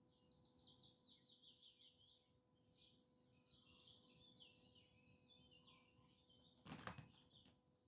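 Faint, continuous chirping and twittering of several small songbirds, with a brief loud bump about seven seconds in.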